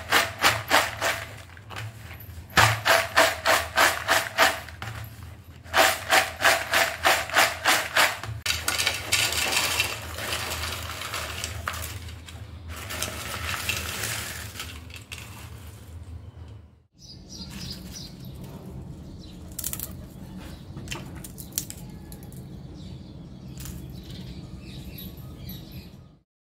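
Crisp fried banana chips rattling and clattering in a plastic bowl as it is shaken to coat them with salt and pepper, in three bursts of quick strokes, then a longer rustling clatter as the chips are poured onto a plate. In the last seconds, only a quiet steady hum with a few faint clicks.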